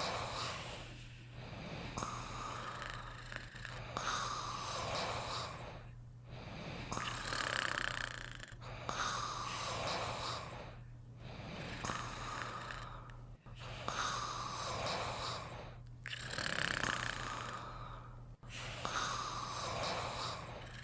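Snoring in slow, regular breaths, about one every two and a half seconds, with short pauses between.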